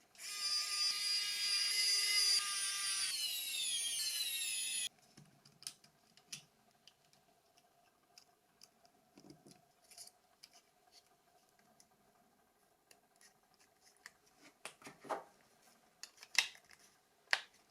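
Small electric screwdriver driving the phone's screws: a motor whine, steady for about three seconds, then dropping in pitch as the screw tightens, and cutting off about five seconds in. Faint small clicks of handling the phone parts follow.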